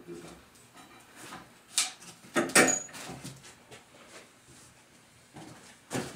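Scattered metal clinks and knocks of bolts, washers and tools being handled while fitting hardware to a wooden cart frame, the loudest pair about two and a half seconds in.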